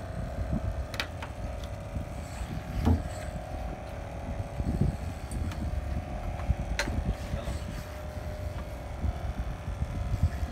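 Fishing boat's deck-mounted inboard engine running steadily, with low wind rumble on the microphone and a few sharp knocks on the wooden hull, the loudest about three seconds in.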